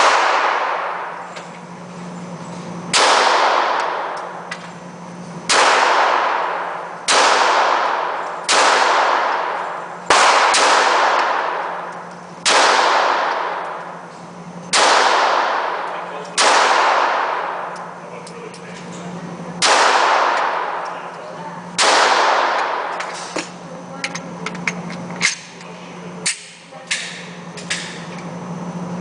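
About a dozen gunshots at an indoor shooting range, fired singly every one and a half to three seconds, each ringing out in a long echo off the range walls. Several shorter, fainter cracks follow near the end, over a steady low hum.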